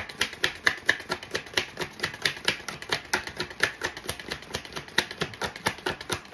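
A tarot deck being shuffled hand over hand, the cards clicking together in an even run of about four to five clicks a second.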